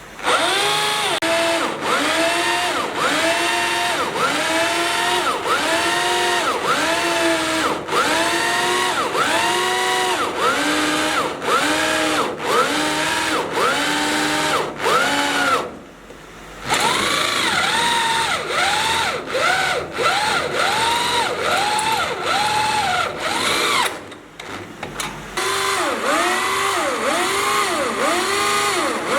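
Power drill boring into steel, its bit squealing with a pitch that rises and falls over and over, about three times every two seconds. The drilling stops briefly twice, once about halfway through and once near the end, then starts again.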